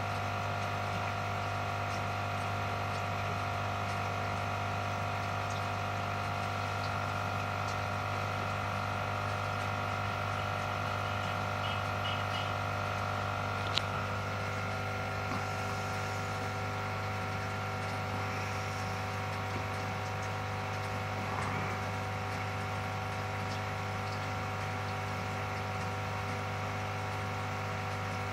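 Aquarium pump humming steadily over faint running water, with one sharp click about halfway through.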